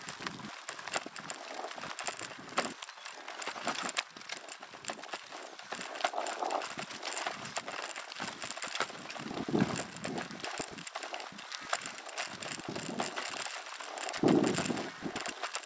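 A bicycle riding over a rough, rutted dirt track: tyres crunching, with frequent clicks, knocks and rattles from the bike, its bags and the bouncing camera boom. Low rumbles of wind on the microphone swell up now and then, the strongest near the end.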